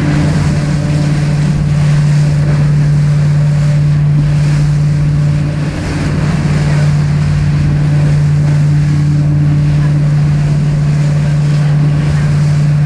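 Motorboat engine running at a steady pitch while underway, with the rush of water and wind on the microphone over it.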